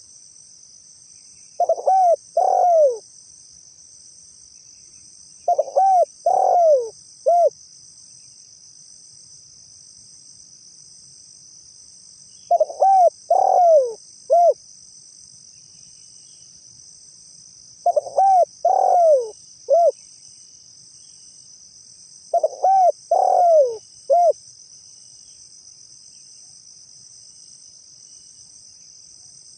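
Spotted dove cooing: five phrases spaced a few seconds apart, each of three or four rising-and-falling coos ending in a short separate note, with none in the last few seconds. A steady high hiss runs underneath.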